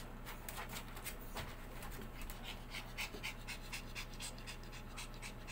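Maltese puppy panting, a quick even run of short breaths, over a low steady hum.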